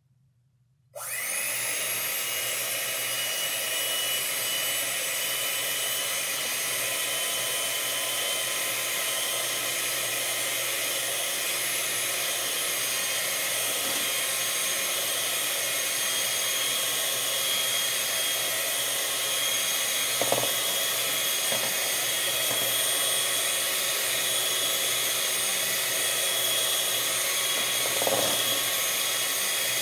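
Handheld electric mixer switched on about a second in and running steadily, its beaters whirring in a mixture in a plastic bowl, with a couple of brief knocks later on.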